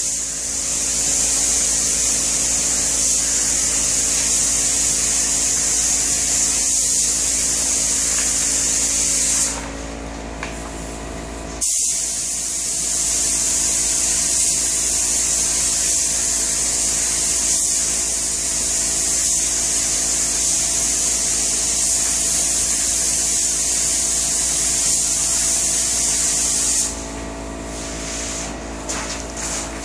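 Compressed-air spray gun hissing as it sprays a finish coat onto kitchen cabinets, stopping for about two seconds near the middle and cutting off near the end as the trigger is released. A faint steady hum carries on underneath.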